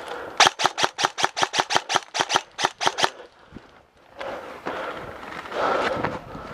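Airsoft gun firing a rapid string of sharp shots, about seven a second for nearly three seconds, then stopping.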